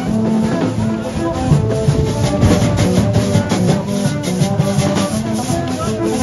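Music with held pitched notes over a steady percussion beat.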